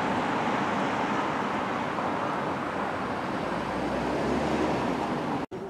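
Steady background traffic noise from the city, with a low rumble swelling briefly about four seconds in; it breaks off abruptly near the end.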